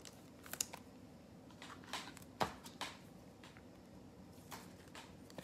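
Faint, scattered rustles and clicks of trading cards and packs being handled, with one sharper click about two and a half seconds in.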